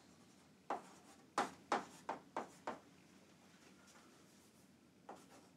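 Chalk writing on a chalkboard: six short, sharp chalk strokes in quick succession over about two seconds as a number is written.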